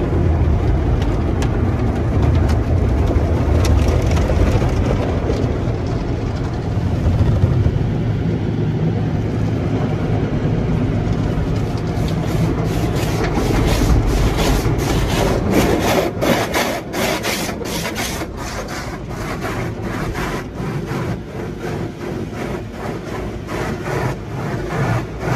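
Soft-cloth tunnel car wash heard from inside the car: cloth wash strips scrub over the body and water sprays on it, under a steady low rumble. About halfway through, quick irregular slaps start against the car, several a second.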